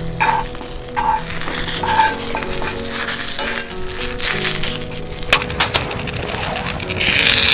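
Background music with held notes over camp-cooking sounds: scattered clinks and knocks of utensils, and a sizzling hiss near the end.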